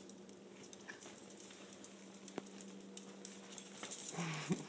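Faint clicking of small dogs' claws on a tile floor over a steady low hum, with a short rising vocal sound near the end.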